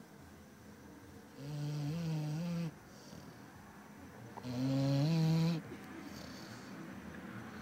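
Labrador retriever snoring: two long, pitched snores about three seconds apart, each stepping up in pitch partway through.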